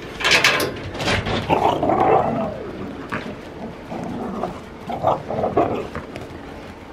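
Laika dogs barking and growling as they play: a few sharp barks in the first second, a longer bending cry around two seconds in, and more short barks about five seconds in.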